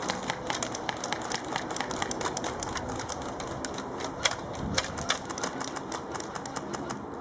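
Airsoft guns firing during a skirmish: a rapid, irregular patter of sharp clicks and snaps, several shots a second, with no pause.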